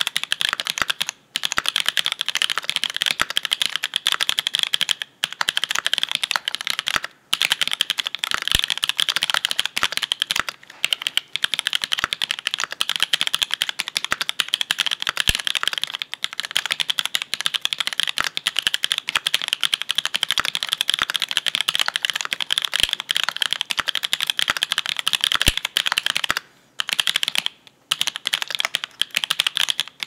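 Continuous typing on a custom KMG TKL mechanical keyboard with an aluminium plate and no PE foam, its switches lubed POM linears built from Kailh red stems in Novelkeys Cream housings, under GMK Modern Dolch 2 keycaps: dense keystroke clacks with a few brief pauses.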